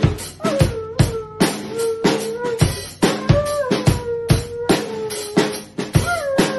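A husky howls along to a drum kit being played. There are two long howls that start high and slide down to a held note, and a third begins near the end, all over a steady beat of drum and cymbal strikes.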